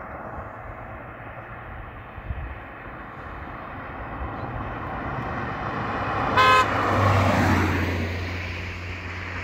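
A car approaching along an asphalt road and giving one short horn toot as it comes near. It then passes close by, its tyre and engine noise rising and fading away.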